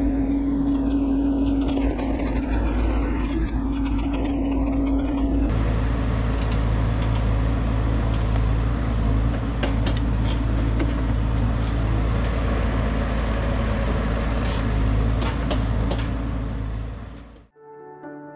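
Bobcat E42 mini excavator's diesel engine running steadily while it works. The hum is heard close up for the first few seconds, then from outside the machine, with occasional clanks and scrapes from the tilt bucket in soil and rock. It fades out near the end as string music begins.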